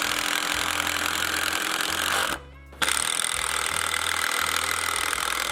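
Handheld power tool running on wood in two long runs with a half-second break between them, over background music.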